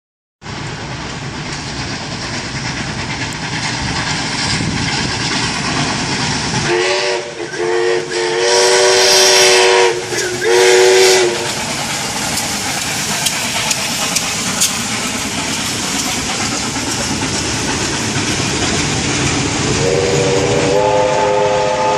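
Steam locomotive passing with a passenger train, a steady rush and hiss of steam and train noise throughout. Its whistle sounds in a run of blasts from about seven to eleven seconds in: two short, then a long one, then another. A second long horn call begins near the end as the carriages roll past.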